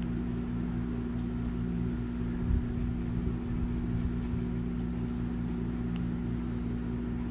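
Steady low mechanical hum of a motor running in the background, with a few faint small ticks.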